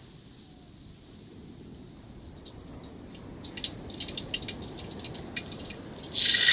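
Mustard seeds popping and spluttering in hot oil in a wide metal pan, a soft hiss at first and then quick sharp pops that crowd together: the seeds crackling open as they temper. Near the end a handful of curry leaves drops into the oil and it bursts into a loud sizzle.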